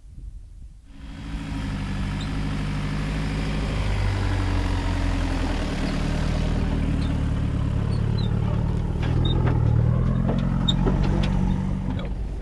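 An SUV engine pulling a trailer at low speed over rough ground. The engine note starts suddenly about a second in, then grows louder and rises in pitch as the vehicle draws close. A few light knocks are heard near the end.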